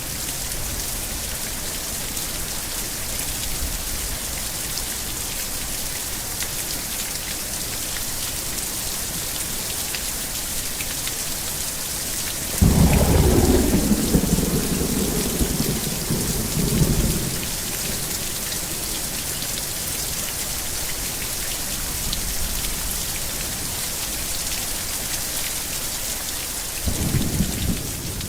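Thunderstorm: steady rain hissing throughout, broken about a third of the way in by a sudden loud thunderclap that rumbles on for four or five seconds, then a shorter, softer roll of thunder near the end.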